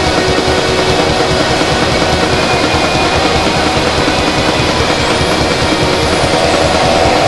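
Loud, steady, dense drone of noise with many held tones layered in it, and a faint high sweep that rises and then falls about five to six seconds in.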